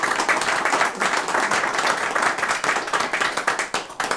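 A small audience applauding, the clapping thinning out and dying away near the end.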